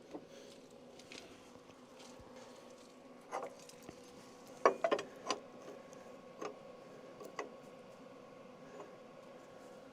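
Scattered sharp metal clinks and knocks of steel parts and tools being handled, a cluster of them about halfway through, over a faint steady hum.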